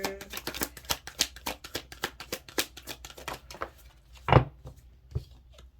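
A deck of cards being shuffled by hand: a fast run of crisp clicks, several a second, then a single louder knock a little after four seconds in as the deck or a card is set down.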